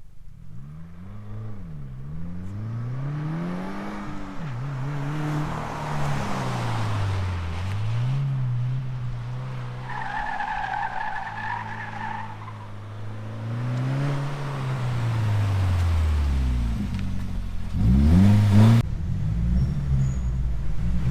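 2015 Subaru WRX's turbocharged flat-four through an Invidia N1 cat-back exhaust, revving up and down repeatedly as the car is driven hard. A high two-note squeal lasts a couple of seconds midway, and a sharp, loud rev comes near the end before the engine settles to a steady run.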